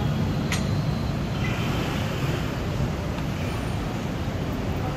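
Steady city road traffic noise from cars passing on the street, with one brief sharp click about half a second in.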